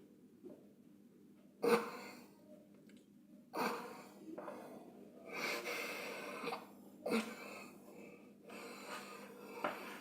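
A person's breathing, heard as several separate breaths.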